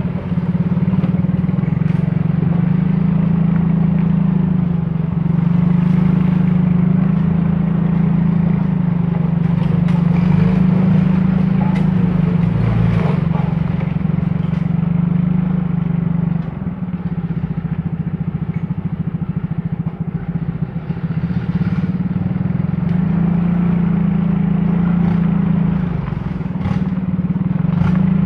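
Vehicle engine running under steady load on a muddy offroad track. It eases off for several seconds past the middle, then picks up again.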